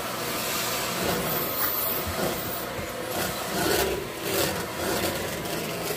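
Canister vacuum cleaner running, its noise wavering in loudness as the nozzle is worked over the floor.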